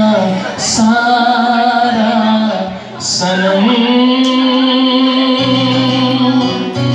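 A song: a voice singing long held notes over instrumental accompaniment, with a low bass note coming in about five seconds in.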